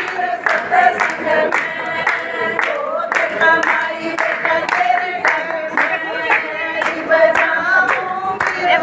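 A group of voices singing a Hindu kirtan devotional chant together, with hand claps keeping a steady beat about twice a second.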